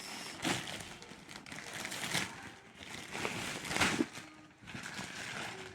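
Gift packaging being torn open, crinkling and rustling in irregular bursts.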